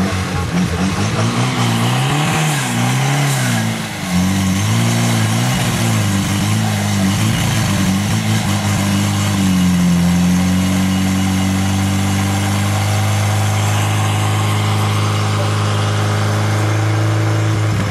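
Portable fire pump's petrol engine running. It is revved up and down repeatedly at first, then settles to a steady, even speed about ten seconds in.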